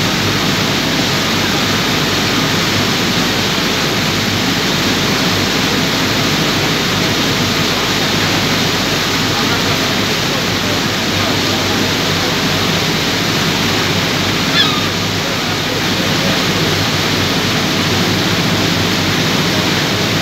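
Steady rushing noise of a boat's wake churning behind the stern, with a faint engine hum underneath. About fourteen seconds in, a single short falling call, one of the gulls flying after the boat.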